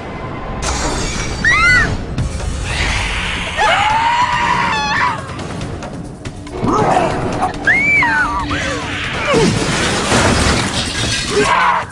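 Horror film trailer sound mix: dramatic music under crashing, shattering sound effects, with high screams rising and falling over it several times.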